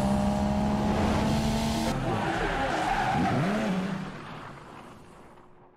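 Produced car sound effect: an engine note holding a steady pitch over a hiss of tyre noise, then swooping up and down about three seconds in, fading away over the last two seconds.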